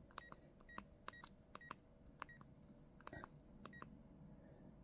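A run of about ten short, identical electronic key beeps at uneven intervals from a PicoAPRS handheld 2 m APRS/FM transceiver, each one a press of its navigation toggle while a frequency is entered.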